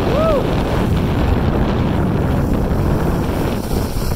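Wind buffeting a phone's microphone while skiing downhill at speed, mixed with the skis running over groomed snow. A short tone that rises and falls is heard just after the start, and the noise eases slightly near the end.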